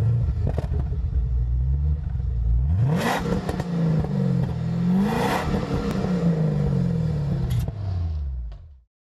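Holden VF Commodore's engine accelerating hard, its pitch rising and falling several times. The sound fades out near the end.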